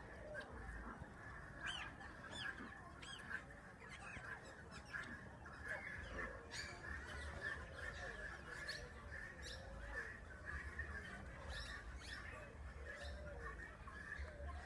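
Mixed bird calls: many short chirps falling in pitch, repeated throughout over a steady background chatter of many birds.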